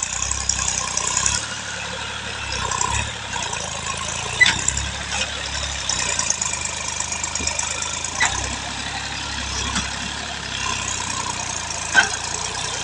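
Massey Ferguson 9500 tractor's diesel engine running steadily under load while dragging a rear leveling blade through loose soil. Three sharp knocks cut through it, the loudest about four seconds in and near the end.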